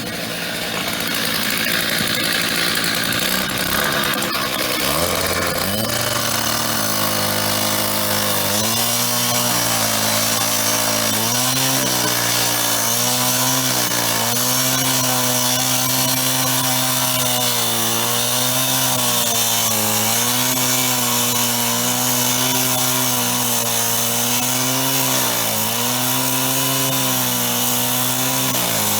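Power tool cutting into the metal screws on the back of a payphone: a few seconds of noisy grinding, then the motor runs steadily with a hiss of cutting, its pitch dipping briefly several times as it takes the load.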